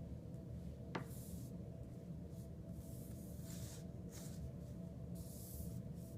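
Flat paper or cardboard puzzle pieces being slid and shuffled on a surface, a few short soft swishes with one small click about a second in, over a steady low hum.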